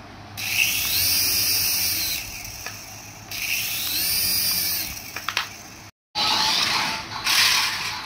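Small electric motor of a toy RC helicopter whirring as its rotors spin up in two bursts of about two seconds, each rising then falling in pitch. After a sudden cutout about six seconds in, a louder whirring starts as the toy RC car runs on the tile floor.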